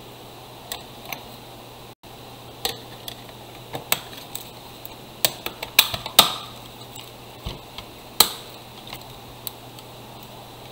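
Plastic power bank casing being pressed and snapped back together by hand: a run of irregular sharp clicks and knocks, the loudest about six and eight seconds in, over a faint steady hum.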